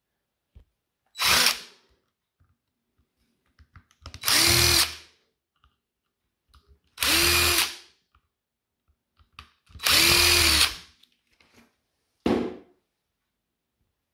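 Cordless power driver backing out the case screws of a DeWalt 18V XR battery pack. There are five short runs, the three middle ones about a second long, and each spins up and winds down.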